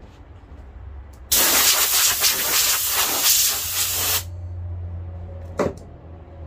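A blast of compressed air hissing for about three seconds as sawdust is blown off a freshly chainsaw-carved cedar carving. It starts and cuts off suddenly. A steady low hum follows, with a single knock near the end.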